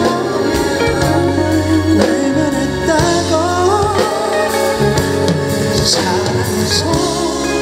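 Male singer performing a song live with a small band backing him on guitar and keyboard, amplified through stage speakers.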